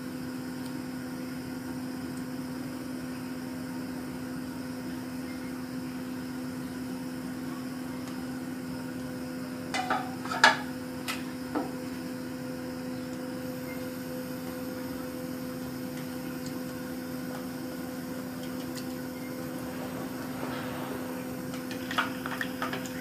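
A steady low mechanical hum over a faint hiss. It is broken by a few sharp clinks against the frying pan about ten seconds in, and by more near the end as a spoon stirs gulab jamun balls frying gently in oil.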